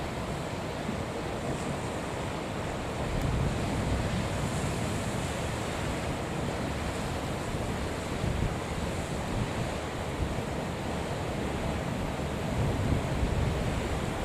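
Gusty wind on the microphone over the steady rush of a rough sea and surf.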